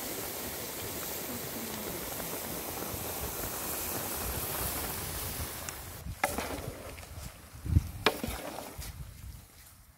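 A steady rushing hiss for about six seconds, which cuts off abruptly. Then a long wooden paddle knocks and scrapes as it stirs salted tomato halves in a large aluminium pan, with one heavy thud about eight seconds in.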